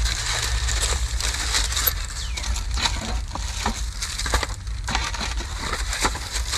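Crinkling, rustling and clicking of food packaging being handled while a plate of food is readied, over a steady low rumble.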